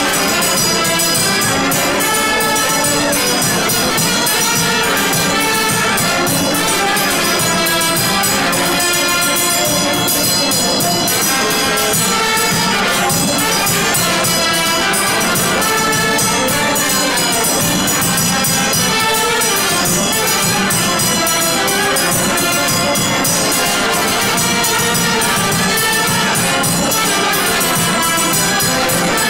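Traditional Romanian brass band playing a lively dance tune: trumpets and other brass carry the melody over a steady bass drum beat. Loud and continuous.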